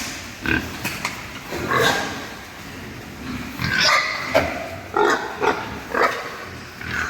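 Young pigs squealing and grunting in a series of short, separate cries that come in clusters.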